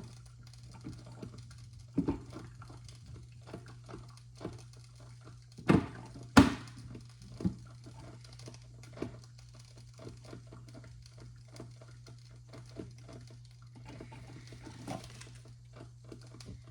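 Mr. Coffee drip coffee maker brewing: an irregular patter of small pops and crackles as the heater sputters water up to the basket, over a steady low hum, with a few louder knocks around six seconds in.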